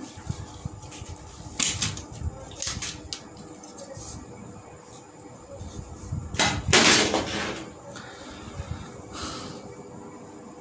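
Handling noises from a flat-screen TV being taken apart: scattered small clicks and knocks of plastic parts and cables, with one louder scraping rustle about six and a half seconds in.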